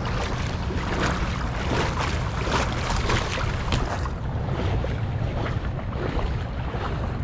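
Rushing creek water, the creek running high, with wind rumbling on the microphone.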